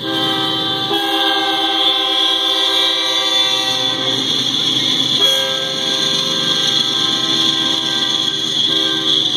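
Horn of an approaching BNSF freight locomotive sounding a grade-crossing warning in several long blasts with short breaks, the longest gap about four seconds in.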